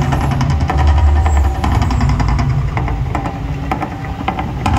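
The Mirage volcano show erupting: a loud, deep rumble, strongest about a second in and then easing, with fast percussive clatter over it as the gas fire jets flare up from the lagoon.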